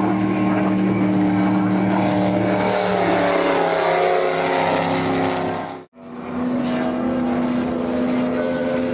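Racing outboard motors of waterski race boats running flat out, a loud steady drone whose pitch shifts as a boat passes. The sound cuts out for an instant about six seconds in, then another boat's engine picks up at a steady pitch.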